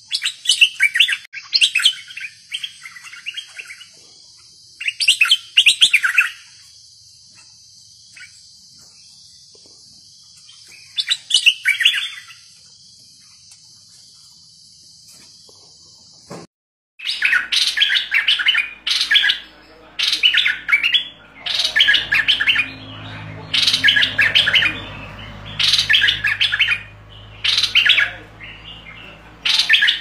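A caged bulbul sings loud, fierce song phrases. Three bursts with long pauses come first. After a break in the middle, the phrases repeat quickly, about one every second or so.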